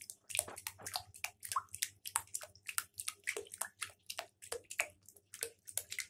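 Shallow bathwater splashing and lapping in a tub as a Cape monitor lizard paddles and walks through it, in quick irregular splashes and drips.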